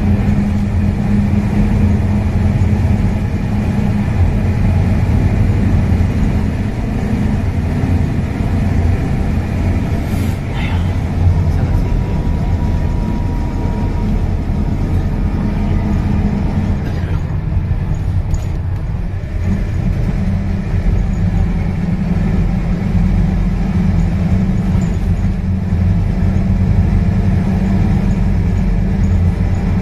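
Scania K230UB single-decker bus's rear-mounted diesel engine running under way, heard from inside the passenger saloon along with road rumble. The engine note drops away for a couple of seconds a little past halfway, then picks up again.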